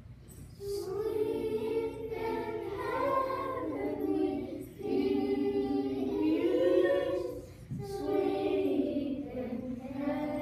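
A group of young children singing a song together, in phrases with short pauses between them.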